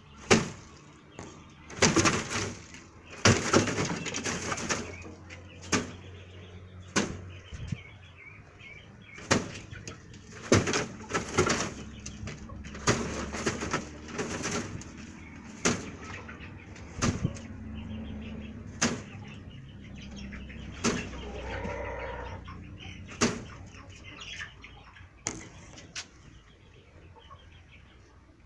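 Young male pet rabbit thumping its hind feet on the floor: sharp single thumps every second or two, some in quick clusters. Foot-thumping is the rabbit's alarm signal.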